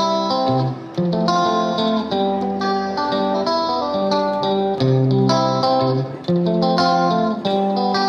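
Background music: a tune on plucked strings, a brisk run of notes over changing chords.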